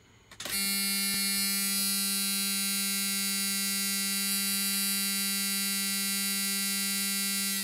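Old Ford truck's seatbelt warning buzzer sounding one steady, continuous low buzz that starts about half a second in and cuts off near the end.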